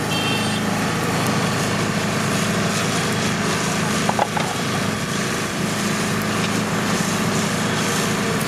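Small portable generator engine running steadily, with a brief clink about four seconds in.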